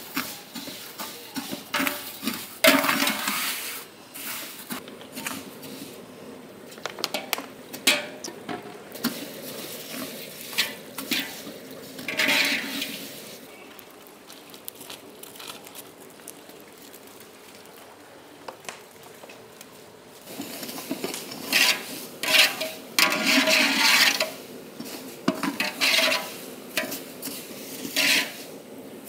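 Kitchen utensils clinking and scraping against pots and dishes, with stirring, in irregular bursts; a quieter lull comes about halfway through.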